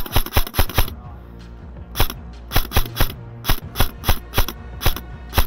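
Airsoft rifle firing single shots in quick succession, each a sharp mechanical snap: a fast string of about five, a pause of about a second, then a steady run of shots two to four a second.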